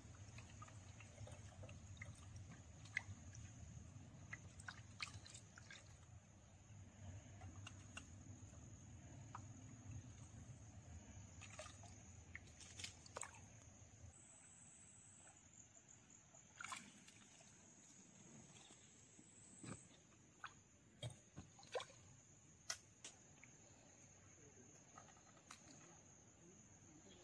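Near silence: a faint, steady, high-pitched insect drone, with scattered small clicks and drips as dough bait and tackle are handled, several sharper clicks coming between about 11 and 23 seconds in.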